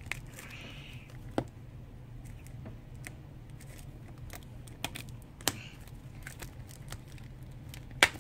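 Fingers picking and scratching at the plastic shrink wrap on a small toy canister: a run of light clicks and crinkles, with sharper taps about a second and a half in, around five seconds in, and loudest near the end. A low steady hum runs underneath.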